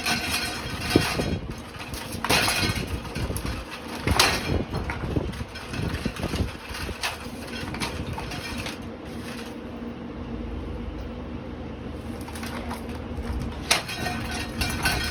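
Ceiling fan running with a steady hum, with several sharp knocks and clatters in the first half.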